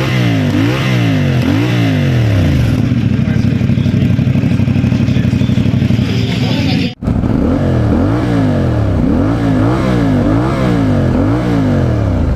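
CF Moto 450MT's parallel-twin engine being revved in quick throttle blips, its pitch rising and falling about one and a half times a second, with a steadier stretch of a few seconds before the sound cuts out for an instant about seven seconds in, then the blipping resumes.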